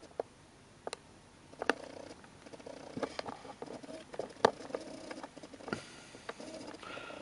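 Light handling clicks and taps at irregular intervals, roughly one every second or so, over a faint intermittent whir of the camera's zoom and focus motor.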